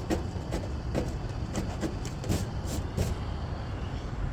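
Irregular sharp taps or clicks, roughly two a second, over a steady low rumble; the taps stop about three seconds in.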